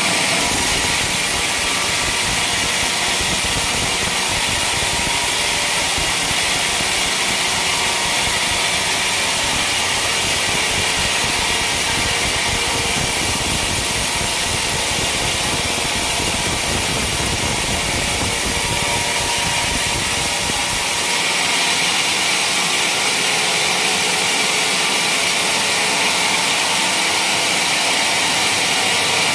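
Motorised sawmill machine running steadily and sawing a teak beam, with a continuous high hiss. A low rumble drops away about two-thirds of the way through.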